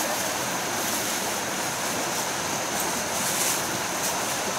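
Steady rushing noise of running water, with a constant high-pitched whine above it.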